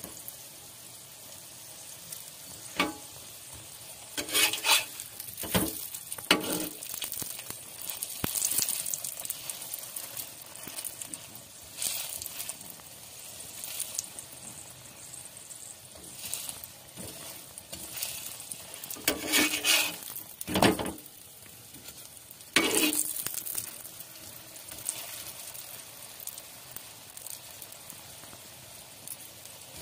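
Cauliflower-stuffed paratha frying in oil in a hot pan, a steady sizzle. A utensil scrapes and knocks against the pan now and then, in clusters about a third of the way in and again about two-thirds in.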